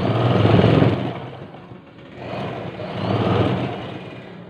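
Electric sewing machine running as it stitches fabric, in two bursts with a brief easing off about two seconds in.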